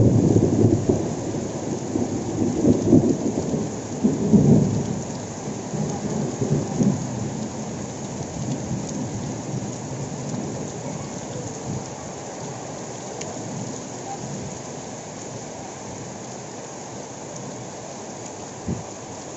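Heavy rain falling steadily, with a clap of thunder at the start that rumbles on and dies away over about seven seconds.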